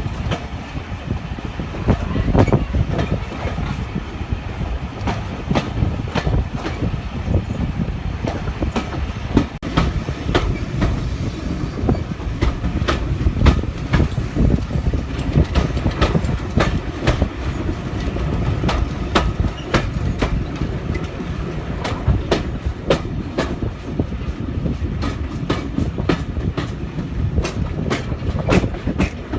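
A train running along the track: a steady rumble with frequent, irregular clicks of the wheels over rail joints.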